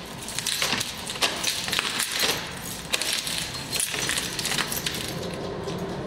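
A run of small clicks, clinks and rustles from objects being handled, irregular and with no pattern, tailing off toward the end.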